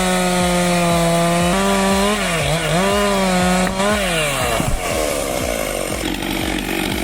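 Two-stroke chainsaw running at high revs, with a steady buzzing note. Its pitch dips briefly about two and a half seconds in, then drops off a little after four seconds as the revs fall, leaving a rougher noise.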